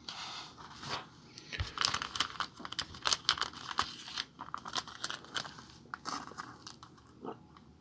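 Light plastic crinkling and rustling with irregular small clicks, from trading cards and their plastic sleeves being handled.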